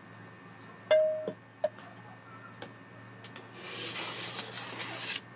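A straightedge scraped across a bed of wet sand-cement mortar to level it: a gritty scrape lasting about a second and a half near the end, stopping abruptly. Earlier, about a second in, there is one sharp clink with a short ring, followed by a couple of lighter knocks.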